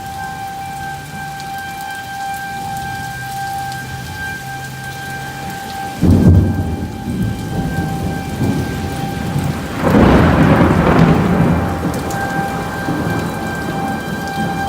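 Heavy rain with two loud thunderclaps overhead, a sudden crack about six seconds in and another about ten seconds in, each trailing into a long rumble. A tornado warning siren holds a steady tone underneath, fading under the thunder and coming back near the end.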